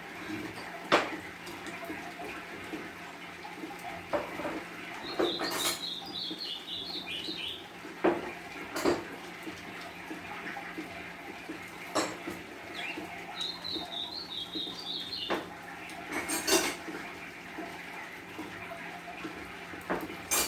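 A small songbird sings two short phrases of quick, high twittering notes, one about five seconds in and one about thirteen seconds in. Scattered sharp clicks and knocks sound between them over a steady low hum.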